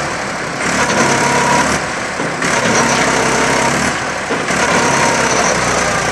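Mahindra 265 DI tractor's diesel engine running hard under load, its note surging and easing about every two seconds as the stuck tractor strains to pull free.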